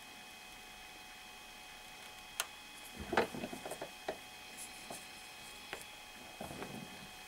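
Scattered light clicks and knocks of a small disc with a steel hex nut being handled against the jaws of a steel bench vise. There is a single click, then a cluster of small clicks about three seconds in, and another short clatter near the end.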